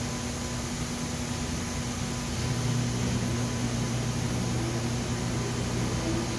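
Laser welding machine running with a steady electrical hum and fan noise; a lower hum comes in about two and a half seconds in.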